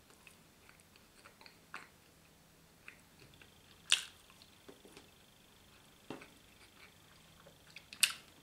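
A person biting into and chewing a bread, butter and sausage sandwich: soft mouth sounds with a few sharp smacking clicks, the loudest about four seconds in and again near the end.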